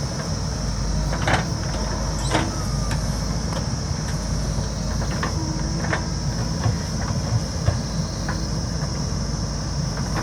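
JCB backhoe loader's diesel engine running steadily, with scattered metallic clanks and knocks over it and a steady high hiss.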